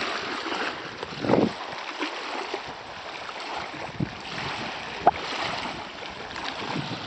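Wind buffeting the camera microphone over small waves lapping at a lagoon shore, a steady rushing noise. A few short knocks from handling, the sharpest a click about five seconds in.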